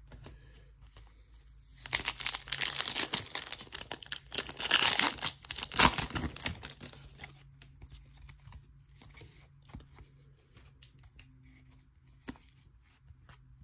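Foil trading-card pack wrapper torn open and crinkled: a loud crackling tear from about two seconds in to about seven seconds, then faint ticks and rustles as the cards are handled.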